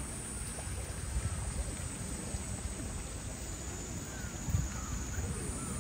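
Outdoor background noise: a steady low rumble with faint, distant voices.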